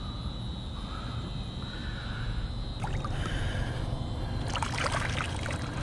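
Largemouth bass released back into the pond at the bank: water splashing and sloshing, mostly near the end, over a steady low rumble.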